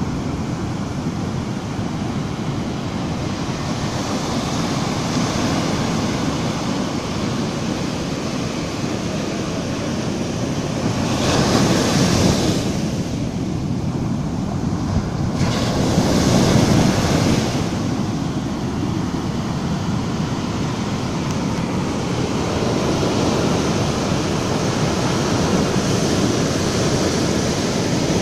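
Sea surf on a sandy beach: waves breaking and their swash running up and draining back over the sand in a continuous rush. It swells louder twice, about eleven seconds in and again about sixteen seconds in.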